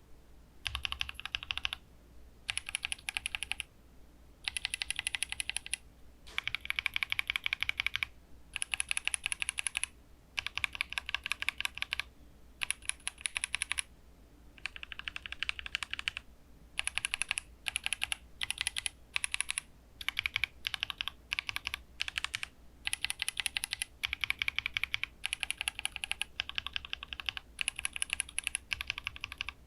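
Mechanical keyboard linear switches being typed on in rapid bursts of keystrokes, about a second or so each, with short pauses between. The switches are stock factory-lubed Frog linears set against lubed Hippo linears.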